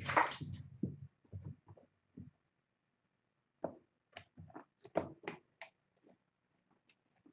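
Paw thumps and scuffles of kittens and their mother cat playing on a fabric play mat and wooden floor: a loud rustling thump right at the start, scattered soft taps, about a second of quiet, then a run of taps and thuds.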